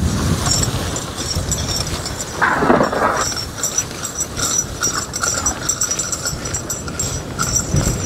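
A Belgian draft horse walking and pulling a wooden sled loaded with fence posts over wet grass, the sled dragging and scraping along the ground. Wind rumbles on the microphone, and a brief louder rasp comes about two and a half seconds in.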